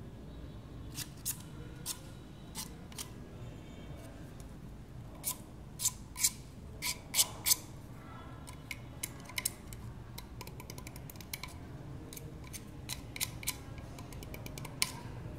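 Household scissors snipping at the end of a plastic pipe: irregular sharp snips and clicks, loudest in a cluster around the middle, with a quick run of lighter ticks after.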